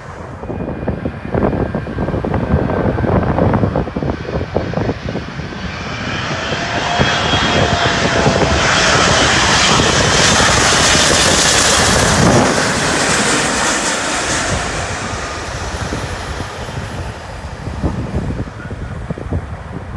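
Jet airliner passing on its landing approach: the engine noise swells to a peak about halfway through and then fades away, with gusts of wind on the microphone early on.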